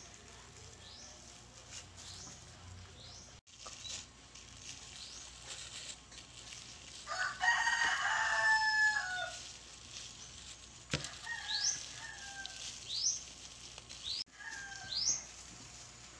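A rooster crowing once, for about two and a half seconds, falling in pitch at the end, about seven seconds in. Shorter calls and quick high chirps come and go around it.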